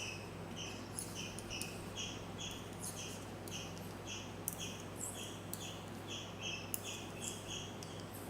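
A small animal's high chirp repeated steadily, about two to three a second, over a low steady hum, with a few faint sharp clicks.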